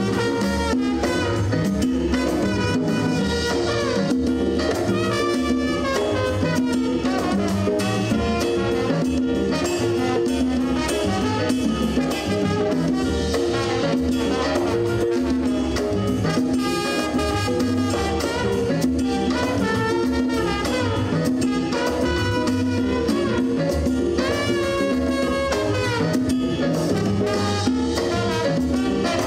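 Live jazz big band playing, with a trombone solo over piano, drum kit, congas and upright bass.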